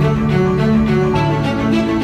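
Background music with strings: held bowed notes over a steady pulse.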